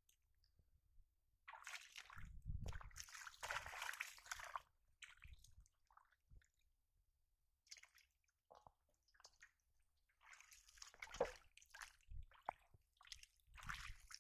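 Shallow water splashing and sloshing, with mud squelching, as hands grab through it and bare feet wade. It comes in irregular bursts, a couple of seconds in and again near the end, with quiet gaps between.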